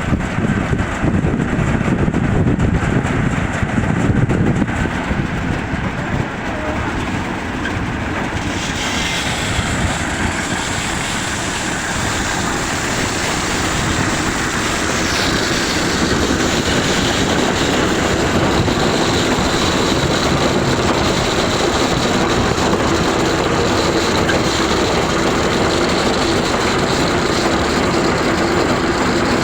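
Sunflower threshing machine running with a loud, steady mechanical noise. About eight seconds in a higher hiss joins it, and from about sixteen seconds a steady hum is added.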